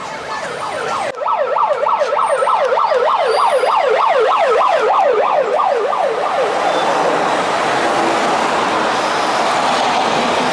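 Convoy vehicle's electronic siren in a fast yelp, rising and falling about three or four times a second, stopping about six and a half seconds in, over the steady noise of cars passing.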